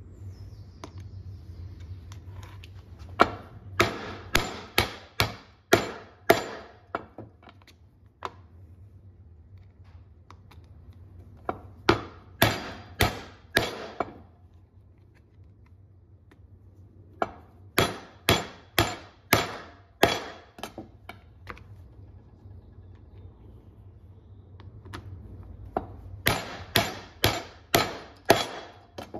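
A metal rivet-setting tool struck again and again with a maul, setting copper rivets through the leather of a hammer loop. Four runs of quick, sharp blows, about two to three a second, with a few seconds' pause between runs.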